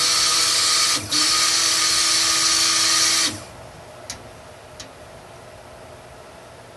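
Handheld stick blender running in oil-and-lye soap batter in a stainless steel pot, blending it to emulsification. It runs steadily for about three seconds, is briefly let off about a second in, then switches off. Two light taps follow.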